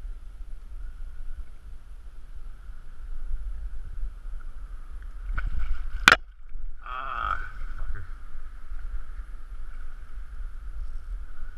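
Wind rumbling on the microphone, then about six seconds in a sharp splash as a hooked carp thrashes at the surface beside the rocks, followed by brief splashing.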